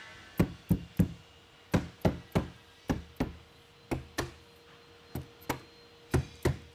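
Rubber mallet tapping extruded aluminum brick mould cladding onto the locking legs of a door frame's jamb cover: a string of sharp knocks, two or three a second, some in quick pairs.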